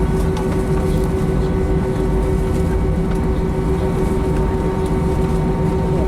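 Airbus A319-131 cabin noise heard from a window seat: its IAE V2500 turbofans running steadily, a dense low rumble with a few steady tones.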